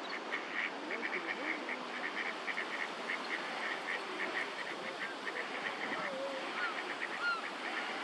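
Mute swan cygnets peeping: a rapid, continuous run of short high peeps, with a few rising and falling whistles near the end. A few lower sliding calls come through about a second in and again around six seconds, over a steady background hiss.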